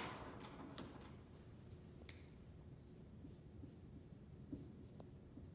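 Near silence broken by a few faint clicks and taps of a marker drawing small shapes on a whiteboard.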